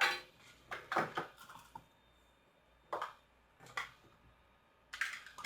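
A handful of short, light clicks and taps, irregularly spaced, as a DC power jack connector and small tools are handled against a TV circuit board while the jack is test-fitted into its solder holes.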